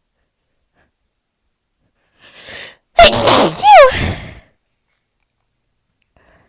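A person sneezing once, about three seconds in: a short intake of breath, then a sudden loud sneeze ending in a voiced cry that falls in pitch.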